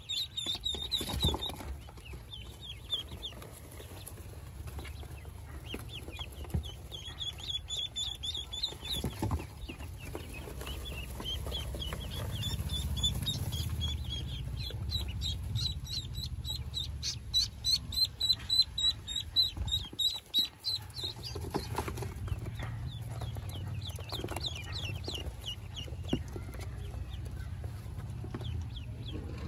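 Newly hatched ducklings peeping, many rapid high-pitched chirps overlapping, with a few knocks from handling.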